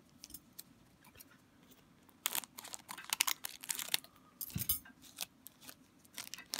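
Foil wrapper of a hockey trading-card pack crinkling in the hand as it is opened, in scattered rustles from about two seconds in until near five seconds.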